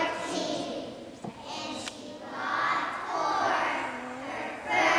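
Young children's choir singing a Christmas song together, with a short lull between phrases about a second in.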